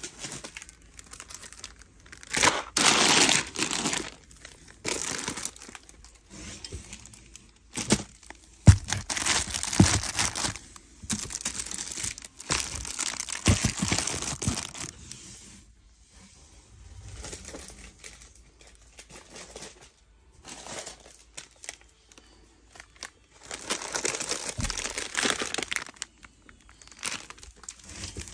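Food packages being shifted and packed into a large cardboard box: irregular crinkling of plastic wrappers and rustling of cardboard, with sharp knocks as boxes hit each other and the box sides.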